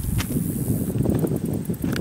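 Wind buffeting the microphone: a steady low rush, with a couple of faint clicks.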